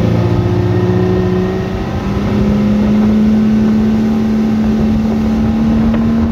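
Yamaha 300 hp V6 outboard under throttle pushing a planing boat, its note rising over the first two seconds or so and then holding steady at speed, with wind and water rush. The engine is mounted three notches up on the transom, and this run tests how the boat gets out of the hole and planes at that height.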